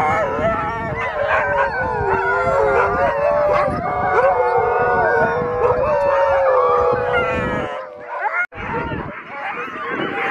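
A harnessed team of sled huskies howling and yelping together, many voices wavering over one another: the eager din of sled dogs waiting to run. It cuts out for a moment about eight seconds in, then comes back as a mix of barking and yelping.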